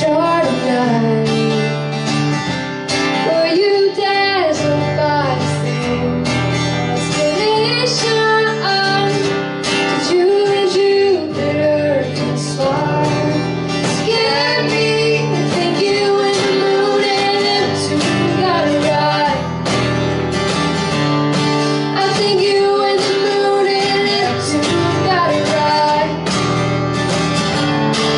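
Live band music: a young woman sings lead over two strummed acoustic guitars, with a cajón keeping the beat.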